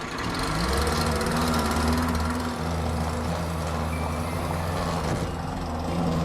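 Electric lawnmower running steadily, a low motor hum that wavers a little in pitch over a hiss of cutting.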